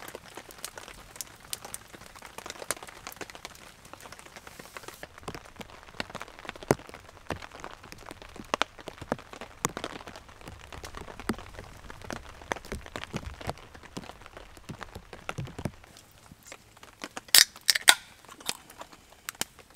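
Wood campfire crackling with many scattered pops and snaps, mixed with rain pattering on a tarp. Near the end comes a short cluster of louder, sharper cracks.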